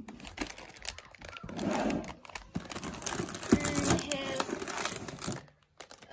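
Crinkling and rustling of plastic-wrapped cookie trays and foil packets being handled and lifted out of a tin, in irregular bursts with small clicks.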